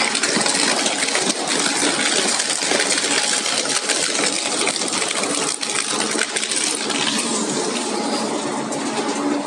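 Industrial shredder or crusher working through material, a loud, dense and continuous metallic clatter and rattle.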